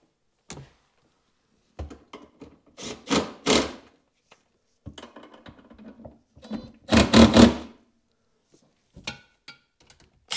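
Makita cordless driver run in short bursts to snug down the engine-mount bolts: two short bursts about three seconds in, then a longer, louder one about seven seconds in, with light clatter of tool on metal between them.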